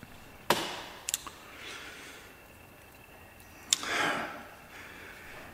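Handling noise from the metal half of a CIS fuel distributor being picked up off the table: a sharp click about half a second in, two light ticks a little after a second, and another click near the end followed by a short scuffing noise.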